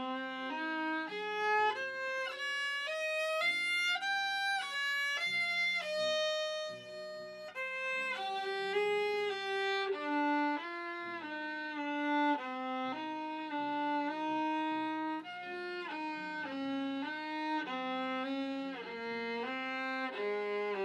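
A violin-family instrument played solo with the bow: a slow melody of held notes, some joined by slides. The line climbs over the first few seconds, then moves lower, and the playing stops right at the end.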